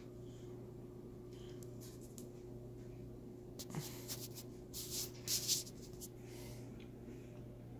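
A steady low hum with a cluster of short scratchy rustles about halfway through.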